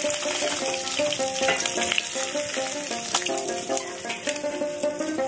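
Pieces of bacha fish sizzling in hot oil in a steel karahi, with a metal spatula stirring and scraping against the pan. Background music with a plucked-string melody plays over it.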